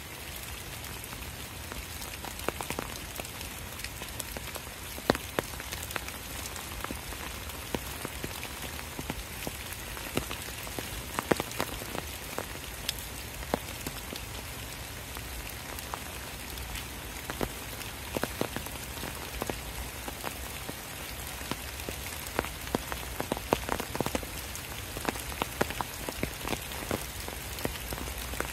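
Steady rain falling through trees onto wet fallen leaves, with scattered sharper drops landing at irregular moments.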